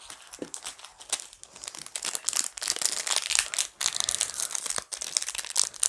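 Foil Pokémon booster pack wrapper crinkling and crumpling in the hands, a dense run of crackles that grows a little louder about two seconds in.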